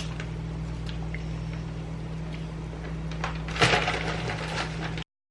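Frozen broccoli being tipped into a pot of fettuccine on the stove, with a short rattling burst about three and a half seconds in, over a steady low hum. The sound cuts off abruptly near the end.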